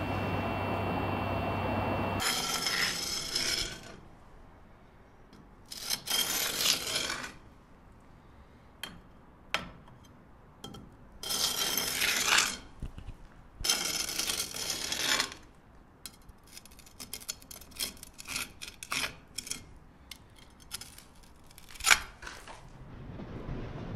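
A steady hum with a faint tone, cut off abruptly about two seconds in; then short bursts of scraping and rubbing noise a few seconds apart, with scattered sharp clicks and taps, one loud click near the end.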